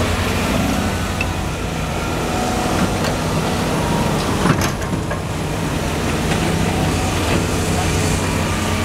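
Caterpillar 320 hydraulic excavator's diesel engine running steadily under load as the machine lifts and swings a full bucket over to a dump truck, with a sharp knock about halfway through.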